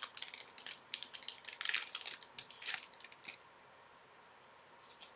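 Plastic crinkling and rustling as hockey card packs and card sleeves are handled. It comes thick for the first three seconds and then thins to a few light clicks.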